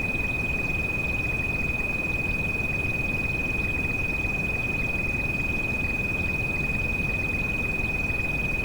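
A steady high-pitched pure tone, the tinnitus-masking treatment frequency, held without a break over a constant rush of rain.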